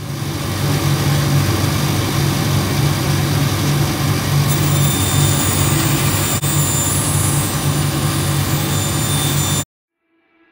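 Large workshop bandsaw running with its dust extraction while a wooden board is fed through the blade: a steady, loud machine noise with a low motor hum. It cuts off abruptly near the end.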